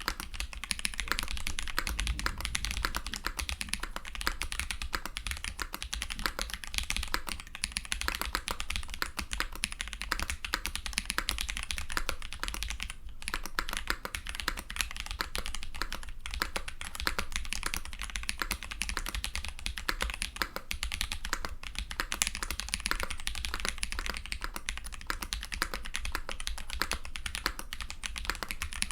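Continuous typing on a custom mechanical keyboard, a Polaris fitted with Drop Holy Panda tactile switches: a steady run of keystroke clacks, briefly pausing twice midway.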